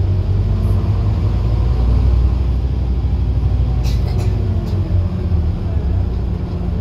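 Scania N230UD OmniCity double-decker bus heard from inside while under way: a steady, loud low diesel engine and drivetrain rumble whose note slowly rises and falls. There are a few brief rattling clicks about four seconds in. The uploader calls the bus very tired.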